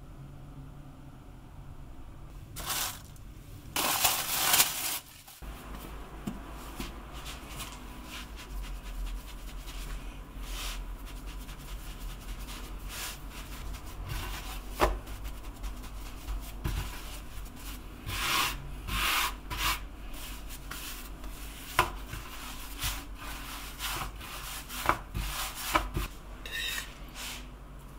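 Hands pressing and stretching a ball of Neapolitan pizza dough on a wooden board dusted with semolina: soft rubbing and scraping of dough and grit against the wood, with scattered light knocks.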